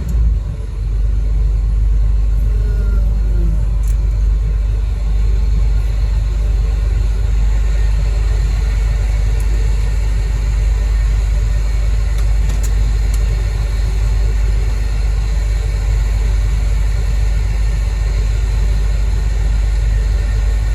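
Heavy diesel machinery engine running steadily with a deep, even rumble.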